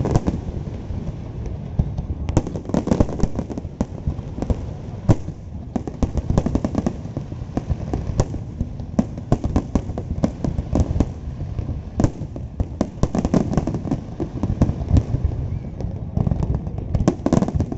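Fireworks display: a continuous barrage of booming shell bursts and crackling, many bangs a second with no pause.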